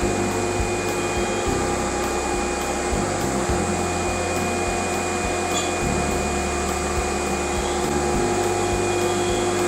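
CNC router at work on wood: a steady spindle tone over the constant rush of a dust collector running alongside it.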